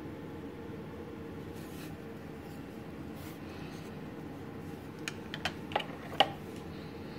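Steady low room hum with faint scratching of a metal ballpoint pen on a paper notepad. About five seconds in, a quick run of about five small sharp clicks comes as the metal pen is handled, the last one the loudest.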